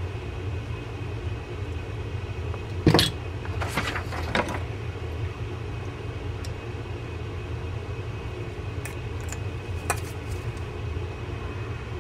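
Clicks and knocks of a knife and a fishing-reel spool being handled while tangled braided line is worked out of the spool. The loudest knock comes about three seconds in, a few more follow over the next second and a half, and another comes near ten seconds, all over a steady low hum.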